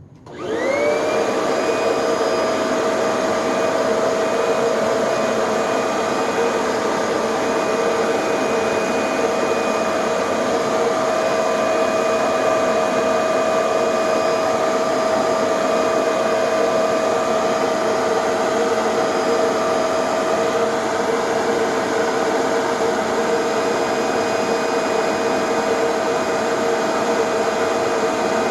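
Kirby G5 vacuum's motor switched on, winding up to speed within about a second and then running steadily with a whine over a rush of air, its exhaust blowing through a hose into a HEPA bag under test. The motor runs on refurbished bearings.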